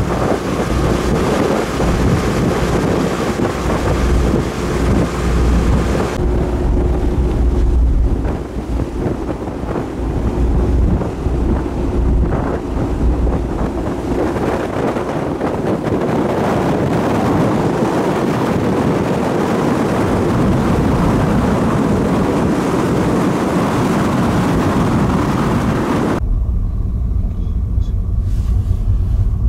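Wind buffeting the microphone on a car ferry's open deck, over the ship's low engine rumble. About three seconds before the end it changes abruptly to a steady low drone of the ferry heard from inside a cabin.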